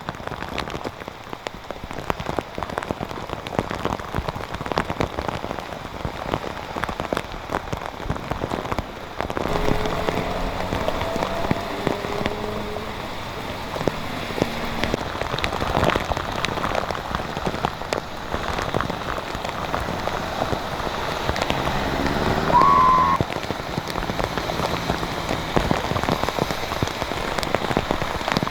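Heavy rain from Hurricane Ida falling and spattering on hard surfaces, a dense steady hiss full of fine drop ticks. Brief pitched sounds come through the rain about ten seconds in and again, louder, about twenty-two seconds in.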